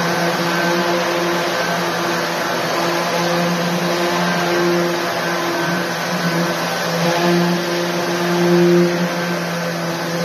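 Hand-held electric sander with a dust-extraction hose running steadily while sanding a patched wall: a steady motor hum over a hiss of sanding and suction, swelling a little near the end.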